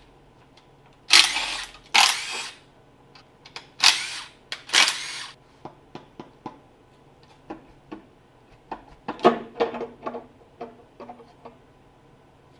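Tools at work taking apart a Nissan KA24E single-cam engine: four short noisy bursts of about half a second each in the first five seconds, then scattered light metallic clicks and knocks from parts and fasteners being handled.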